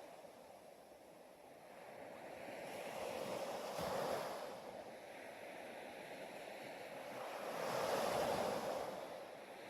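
Ocean waves surging in and washing back, two swells about four seconds apart.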